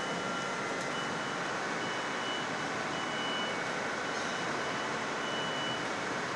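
Potato-handling conveyor machinery running steadily, a dense rumbling noise of belts and tumbling seed potatoes. A high warning beep switches on and off about once a second throughout.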